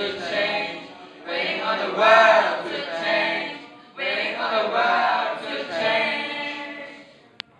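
A group of schoolboys singing together into microphones, in three loud phrases with short breaks, the last one fading out. A single sharp click comes just before the end.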